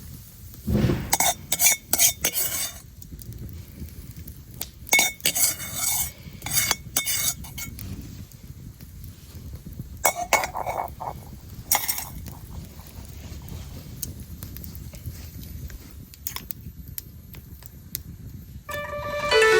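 Metal utensil clinking and scraping against a pan or dish in short bursts, over a low steady background hiss.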